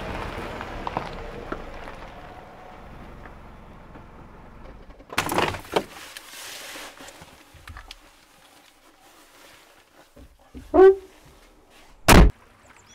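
Footsteps that fade out over the first couple of seconds, a short rustle, then a brief squeak with a bending pitch and, near the end, a single loud thunk of a car door being shut.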